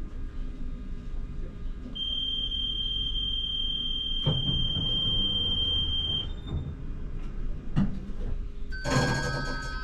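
Tram door-closing warning: a steady high beep lasting about four seconds, with the doors shutting with a knock partway through. Near the end an electronic chime sounds, the gong that comes before the next-stop announcement.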